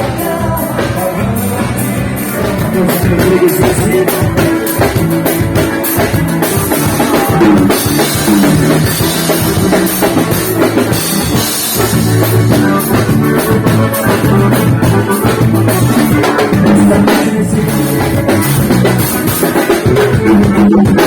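Live band playing an instrumental passage, a drum kit keeping a steady beat under the other instruments, with no singing.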